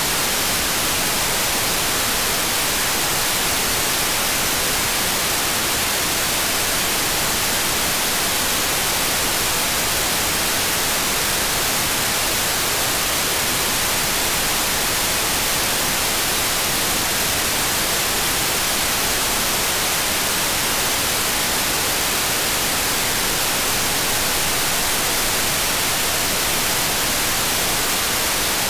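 Steady radio static: the AirSpy Mini software-defined receiver's hiss on the ISS 145.800 MHz downlink, with no voice getting through while the station is only a few degrees above the horizon.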